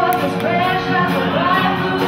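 Live rock band playing, with a female lead singer singing into a microphone over guitar, bass and drums.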